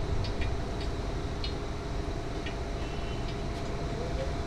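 Steady low rumble of background noise with a faint even hum running through it and a few light, scattered clicks.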